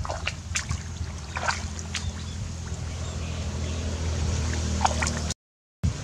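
Hands splashing and dabbling in shallow muddy water while feeling for fish, a handful of short sharp splashes over a steady low hum; the sound drops out briefly near the end.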